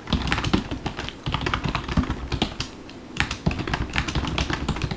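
Typing on a computer keyboard: an uneven run of quick keystrokes, several a second.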